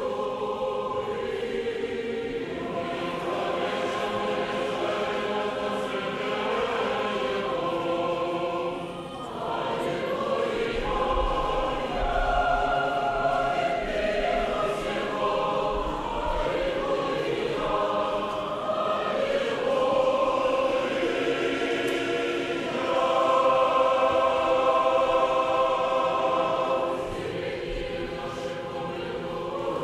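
A choir singing Russian Orthodox liturgical chant in held chords of many voices, without instruments. There is a short break between phrases about nine seconds in.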